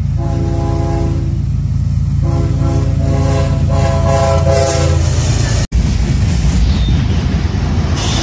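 A diesel freight locomotive's multi-chime air horn sounds two long blasts, several notes at once, over the steady rumble of its diesel engines as the train approaches. About two-thirds of the way in this gives way to the engine rumble and wheel noise of diesel locomotives passing close by.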